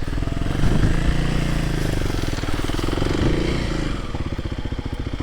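Kawasaki KLX300 dual-sport's single-cylinder engine running at low revs, its pitch rising a little about a second in and again around three seconds before easing back.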